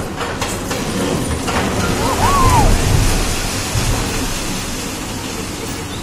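Concrete building frame breaking up and collapsing under a hydraulic excavator: a few sharp cracks and knocks, then a crashing rumble of falling concrete that is loudest two to three seconds in and dies away, over the excavator's engine.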